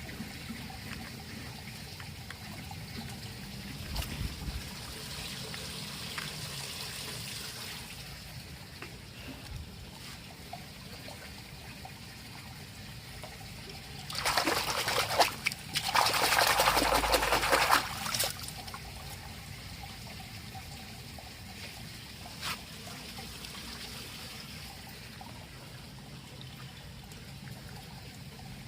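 Water trickling while toy vehicles are washed, with a much louder spell of pouring, splashing water about halfway through, lasting about four seconds, and an occasional click of plastic.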